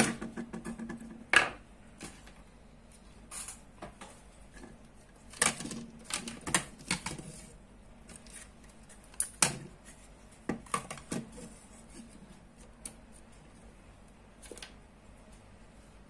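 Two plastic two-way wall switches handled and set down on a tabletop: scattered clicks and light knocks, some in quick clusters.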